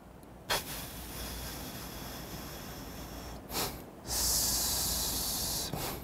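A man's breathing exercise: a short sniff in through the nose, then a long hissing breath pushed out through clenched teeth and pursed lips, done twice. The second out-breath, from about four seconds in, is the louder 'shh'. This 'pff' or 'shh' hiss of air forced out against resistance is the sign that the cough-suppressing breath is being done right.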